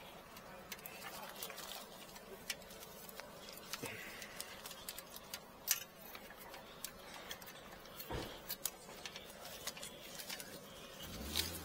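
Scattered light clicks and taps of hands working with tools and cable, irregular rather than rhythmic, with a louder click about six seconds in and a low thud near the end.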